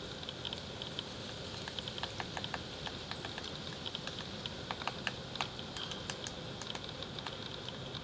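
Male downy woodpecker tapping and pecking at tree bark while foraging: light, irregular taps, several a second with uneven gaps, not a drumming roll.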